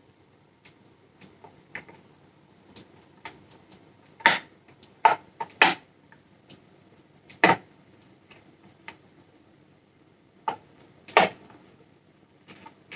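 Sharp plastic clicks and snaps of an Icon Airflite helmet's visor being forced onto its side hinge mechanism, with lighter handling taps in between. A cluster of louder snaps comes in the middle and one more near the end, as the stiff visor fights its fitting.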